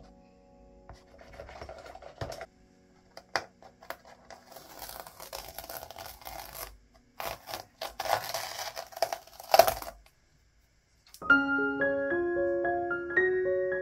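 Masking tape being peeled off a canvas in two long crackling pulls, after some light scratching of a toothbrush's bristles on the canvas. Soft piano music begins near the end.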